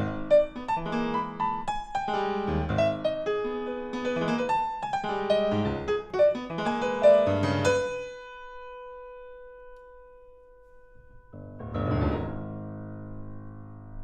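Solo grand piano playing quick, dense runs of notes for about eight seconds. Then a single note is left ringing and fading, and near the end a deep low chord swells in and rings on.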